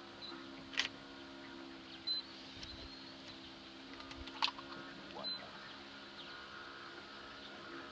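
A steady low hum with a few sharp clicks and two short, high electronic beeps.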